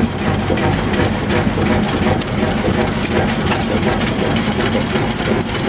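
Vintage stationary engine running steadily with a regular mechanical beat.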